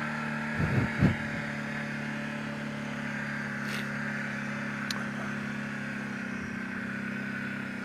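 Kawasaki Brute Force 750 ATV's V-twin engine running at a steady, even pace while riding, with two brief louder sounds about a second in.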